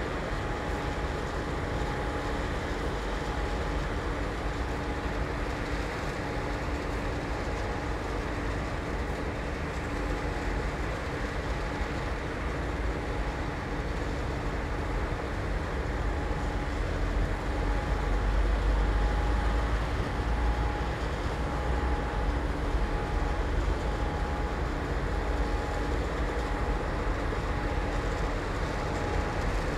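Steady industrial machinery noise in a cement plant: a deep rumble with a constant hum, growing somewhat louder about halfway through.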